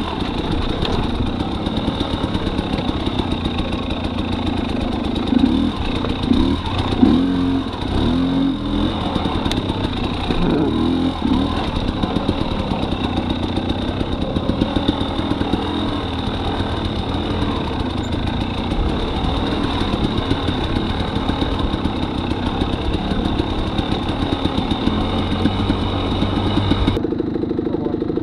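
2018 Husqvarna TX300's two-stroke dirt bike engine running under a rider on trail, the revs rising and falling with louder bursts of throttle around five to eleven seconds in, then changing abruptly to a steadier run near the end.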